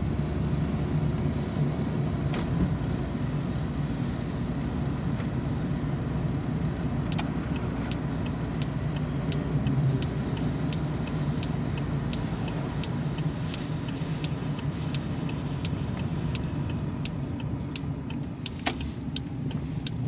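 Cabin sound of a 1994 Toyota Camry with its 2.2-litre four-cylinder engine running steadily under road noise. About a third of the way in, a steady ticking starts, a little over two clicks a second, typical of a turn-signal flasher.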